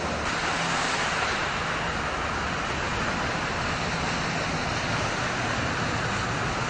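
Minibuses and cars driving through standing floodwater on a road: a steady rushing of tyres throwing up spray, with a low engine hum underneath.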